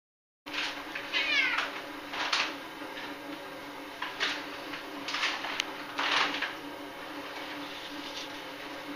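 A house cat meowing repeatedly, five or six short calls over the first six seconds or so, with a low steady hum beneath.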